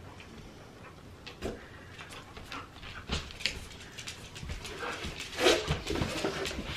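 Excited dog whining and whimpering for a toy, with scattered light taps and clicks around it; the loudest whine comes about five seconds in.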